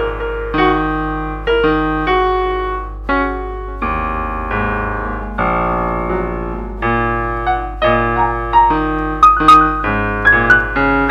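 Background piano music: slow chords, each struck and left to fade, with higher single notes picked out near the end.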